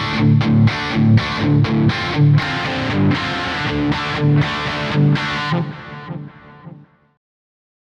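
Distorted electric guitar playing a riff of rhythmic chord hits. It breaks off about five and a half seconds in and rings out to silence by about seven seconds.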